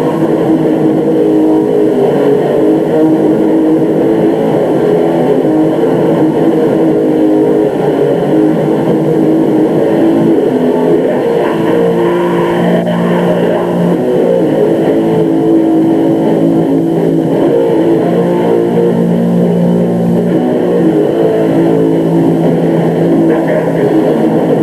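Black metal band playing live: a loud, dense wall of distorted electric guitars holding chords that change every few seconds, recorded muddy with little bass.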